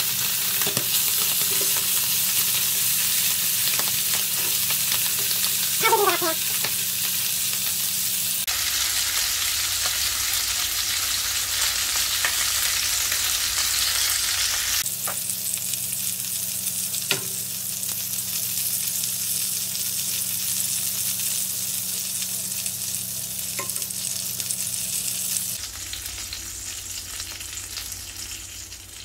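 Mackerel steaks sizzling in hot oil in a frying pan: a steady frying hiss, with a few light clicks against the pan. The sizzle grows quieter over the last few seconds.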